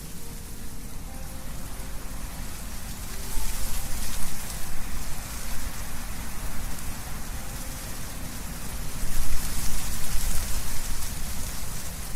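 Wind blowing through trees, leaves rustling in a steady hiss with a low rumble of wind, swelling in two gusts, about a third of the way in and again near the end.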